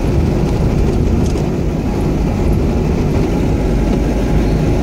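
Steady rumble of a moving vehicle's engine and road noise, heard from inside the vehicle as it drives.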